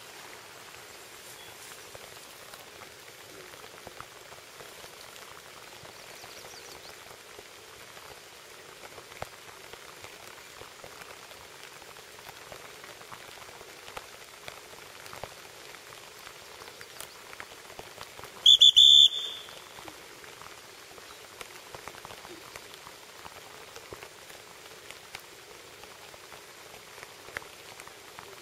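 Steady rain falling on the surface of a creek, with one short, loud whistle blast about two-thirds of the way through: a handler's dog whistle.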